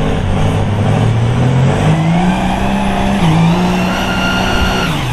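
Two mega trucks, a lifted Ford and a lifted Dodge, running at full throttle against each other in a truck tug of war, with tires spinning on the pavement. The engine note climbs about two seconds in and holds, with a high whine over it. Near the end it drops sharply as the throttle comes off.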